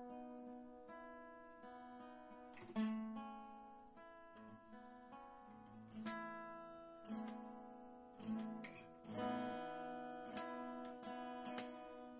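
Acoustic guitar played slowly: a chord is struck about once a second and left to ring out before the next.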